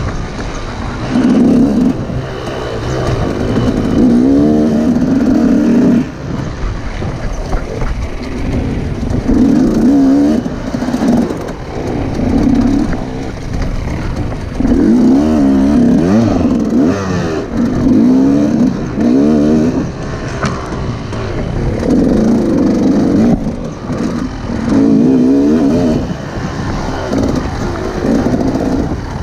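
KTM EXC 200 two-stroke single-cylinder enduro engine revving hard in repeated bursts, its pitch climbing and dropping every couple of seconds as the rider opens and closes the throttle and shifts through a dirt course.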